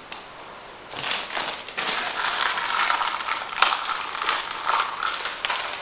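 Rustling and scratching of parts being handled on a workbench, with scattered clicks, starting about a second in.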